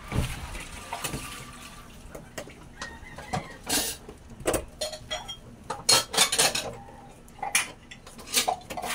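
Irregular metallic clinks and knocks, a dozen or so scattered over several seconds.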